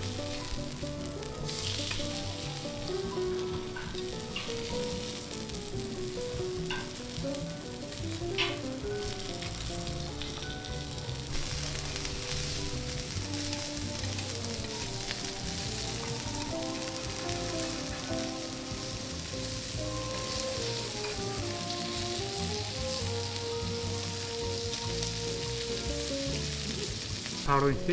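Kobe beef and vegetables sizzling steadily on a hot steel teppanyaki griddle, with a few short clinks of the chef's knife and spatula on the steel. A soft melody plays underneath.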